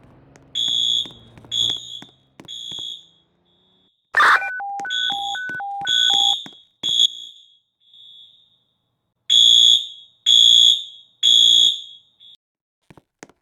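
Building fire alarm sounding: shrill half-second pulses in sets of three, the evacuation pattern of a pulled alarm. About four seconds in, a sharp knock is followed by a second alarm tone alternating high and low for about two seconds.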